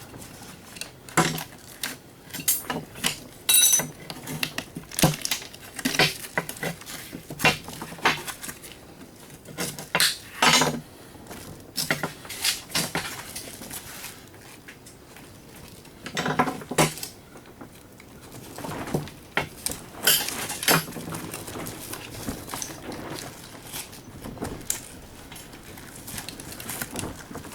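Irregular clinks, clicks and knocks of small metal parts and hand tools as a small switch from an old can opener is worked at and pried apart. The sounds come in clusters with short quiet gaps.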